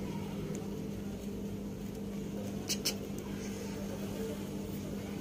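Two small sharp clicks about a fifth of a second apart near the middle, from a smartphone and a wired headphone cable and plug being handled, over a steady low electrical hum.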